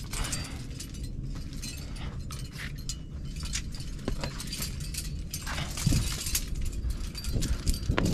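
Metal trad climbing gear (cams and carabiners) clinking and jangling in many short irregular clicks, with a few low knocks near the end.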